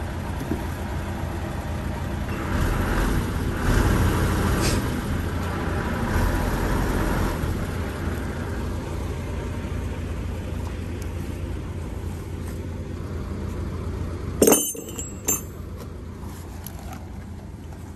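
Steady low hum of a truck's diesel engine idling. Near the end there is a sharp metallic clank with a brief ring, and a smaller one about a second later.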